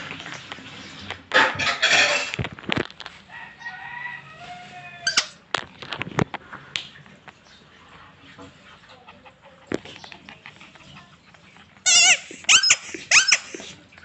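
Pink rubber squeaky toy squeaking: several loud, shrill, wavering squeals starting about twelve seconds in, and a fainter drawn-out squeak around four seconds in. A short burst of scuffling and rustling comes a second or two in.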